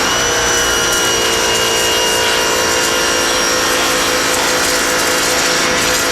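Harbor Freight electric pressure washer running steadily, its motor and pump giving a constant whine over the hiss of the spray.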